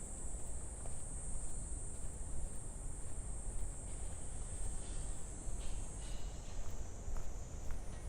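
Cicadas in the trees singing in a steady, high, shrill drone that thins a little about six seconds in, over a low rumble.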